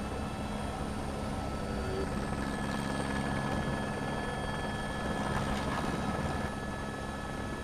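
Steady mechanical engine drone with several held high tones over it; the sound changes at an edit about six and a half seconds in.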